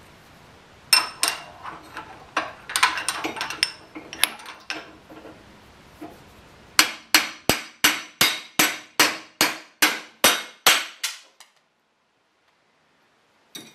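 A hammer striking a steel motorcycle rear sprocket and hub on a bench vise, with a metallic ring after each blow. First come several irregular blows, then a steady run of about a dozen strikes at roughly three a second that stops about two seconds before the end. The blows are driving seized, torch-heated broken studs out of the hub.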